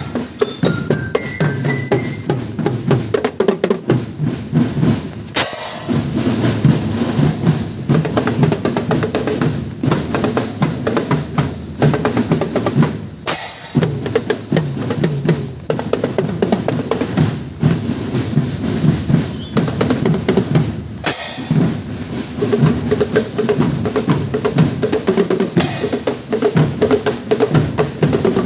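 Marching drum band playing a steady rhythm on snare and bass drums, with a sharp full-band accent about every eight seconds.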